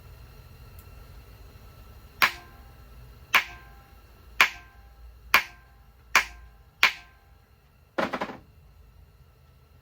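Six sharp metal-on-metal strikes, about a second apart and each with a short ring, made while working a stuck engine part free, followed near the end by a brief rattling clatter.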